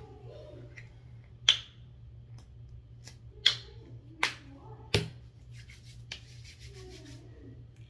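Hands handling a tube of face cream and working lotion onto the skin: four sharp clicks and taps a second or so apart, a few fainter ones between, then soft rapid rubbing of palms slick with lotion near the end.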